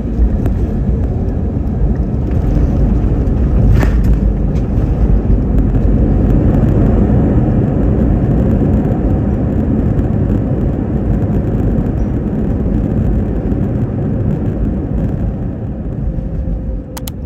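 Airbus A321neo cabin noise as the airliner slows after landing: a loud, steady low rumble of engines, airflow and wheels on the runway that eases off over the last few seconds. A couple of sharp clicks come just before the end.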